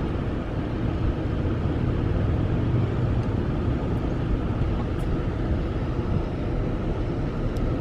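Steady low rumble of a car driving slowly, engine and tyre noise heard from inside the cabin.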